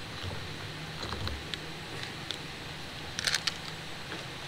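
Water poured into a bowl of rolled oats near the start, over a steady background hiss and low rumble. A quick cluster of sharp clicks comes a little over three seconds in.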